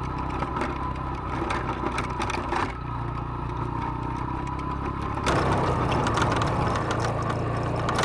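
ATV engine running steadily while riding a rough dirt trail, with rattling and crunching from the machine and the gravel. About five seconds in, the sound jumps abruptly to a louder, rougher engine and trail noise.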